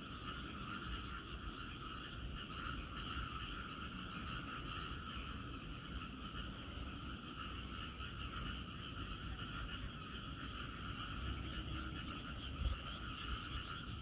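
A dense chorus of many frogs calling at once, their calls overlapping into a steady, fast-pulsing trill. A brief low bump sounds near the end.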